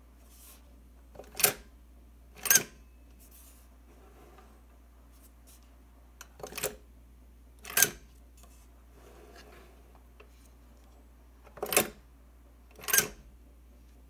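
Cast iron mechanical bank, a bird-feeding-nest reproduction, worked by its lever three times. Each time the mechanism gives two sharp metal clanks about a second apart as the parent bird pivots.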